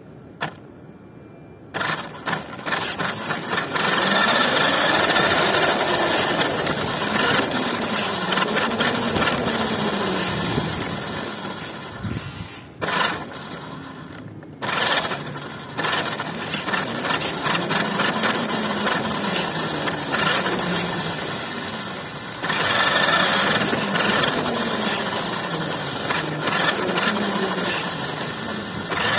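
Radio-controlled car's motor and drivetrain whining, the pitch rising and falling again and again as the throttle changes. The motor starts about two seconds in, stops briefly around the middle, then runs again.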